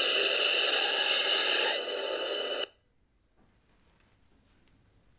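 Sound-font effect played through a Saberforged Obi-Wan lightsaber's speaker: a steady hissing hum with held tones that cuts off suddenly about two and a half seconds in, leaving only faint hiss.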